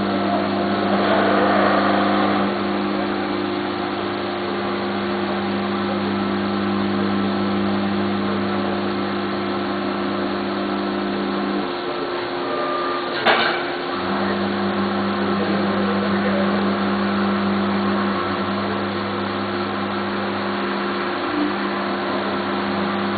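FANUC Robodrill's spindle and end mill milling a steel dome on a 5-axis table, with coolant spraying: a steady machine hum over a hiss. About halfway through, the hum drops out for roughly two seconds with one sharp click, then resumes.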